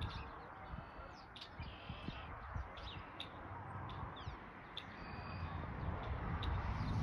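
Small birds chirping in many short, high notes, over a low rumble. Honking from a passing flock of large birds builds near the end.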